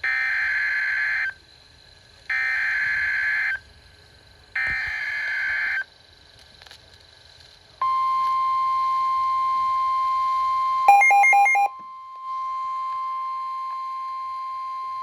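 Emergency Alert System warning tones: three short screeching digital header bursts about a second apart, then a long steady single-pitch attention tone. About eleven seconds in, a brief burst of rapid beeping cuts in, and then the steady tone resumes, a little quieter.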